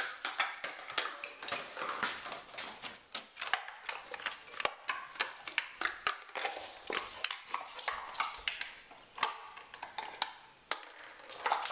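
Rapid, irregular clicking and crackling as a young Labrador retriever mouths and carries an empty plastic pudding cup, with her claws ticking on the hard floor.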